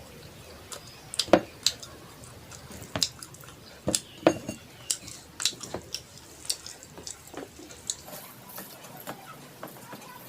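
Close-miked eating sounds: irregular wet clicks and smacks of white rice with cabbage-and-prawn chorchori being mixed and eaten.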